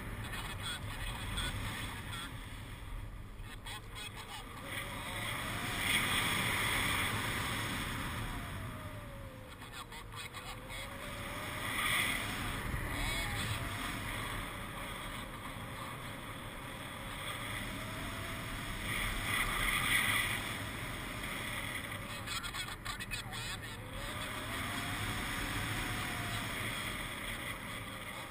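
Wind rushing over the microphone of a paraglider pilot's mounted camera in flight, swelling and easing several times. A faint tone glides up and down now and then beneath it.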